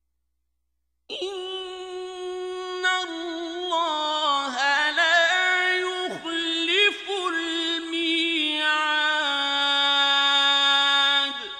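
A male reciter chanting the Quran in the melodic mujawwad style. One long ornamented phrase starts about a second in, with held high notes and wavering melismas, and cuts off near the end with a reverberant tail.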